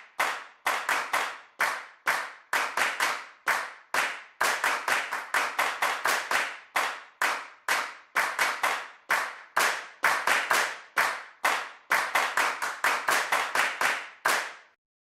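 Hand claps in a steady rhythm, about three a second, each a sharp crack with a short fading tail, with no music beneath.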